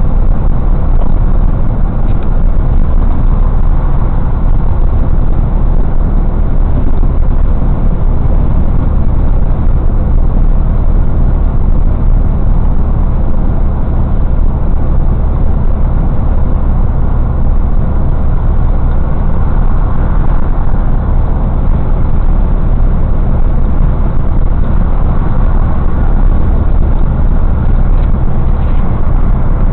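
Steady, loud low drone of a semi truck's diesel engine and road noise, heard from inside the cab while it cruises at highway speed.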